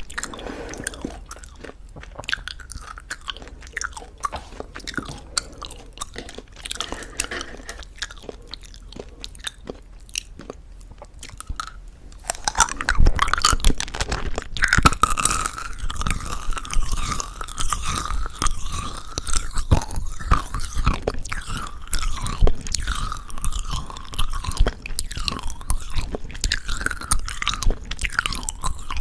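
Close-miked chewing of a plum chewy jelly candy with a crunchy coated shell, wet mouth clicks and smacks. It is softer at first and gets louder and busier about halfway through.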